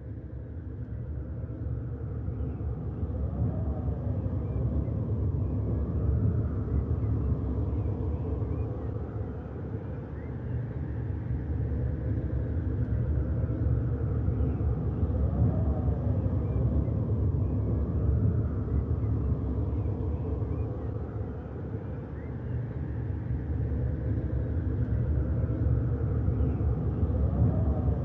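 A steady low rumbling drone that fades in at the start, then slowly swells and ebbs, with faint sweeping tones rising and falling every five or six seconds.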